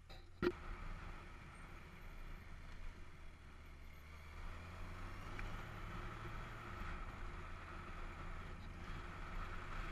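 Motorcycle engine running under wind and road noise on a helmet-mounted camera while riding; the engine note drops a little about seven seconds in. A sharp knock about half a second in.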